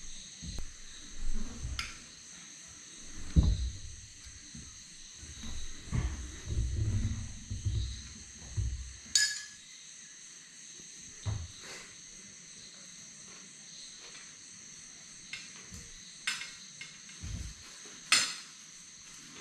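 Cutlery and crockery clinking at a meal: a few sharp clinks of metal on plate and several dull knocks, with a steady high-pitched drone behind.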